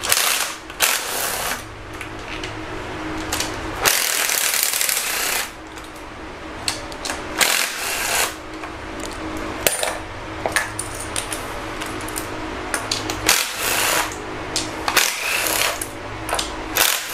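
Cordless ratchet running in short bursts as it spins out engine valve-cover bolts, with many sharp metallic clicks and clinks of the socket and loosened bolts in between.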